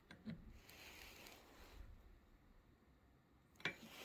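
Near silence, with a few faint clicks: one about a third of a second in and another near the end.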